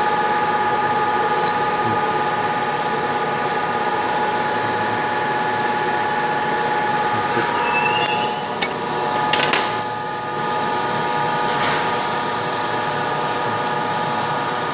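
CNC stone-working machine running, with a steady whine of several held tones. A few knocks and a short dip in level come about eight to ten seconds in.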